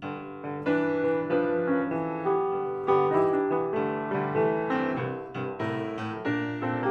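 Intro music: a piano tune of notes struck one after another over chords.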